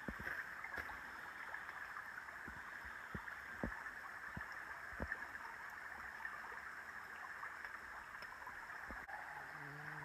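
Steady rainforest background: a faint, even hiss with a few soft low thumps scattered through it.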